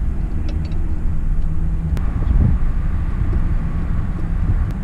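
Pickup truck engine idling with a steady low hum, with a few faint clicks over it.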